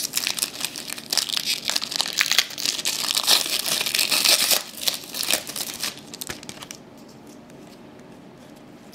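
Foil wrapper of a trading-card pack crinkling and tearing as it is opened by hand, a dense crackle that dies down after about six and a half seconds.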